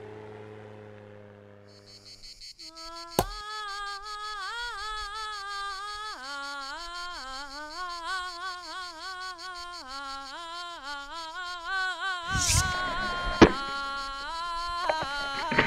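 Background music: a fading chord, then a wavering melody over a light, even ticking rhythm from about two and a half seconds in. Near the end, a few sharp axe strikes into wood on a chopping block cut through the music.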